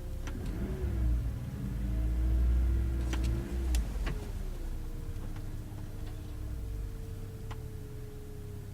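Suzuki Jimny engine working over off-road terrain, its pitch rising and falling with the throttle over a heavy low rumble, with a few sharp knocks along the way.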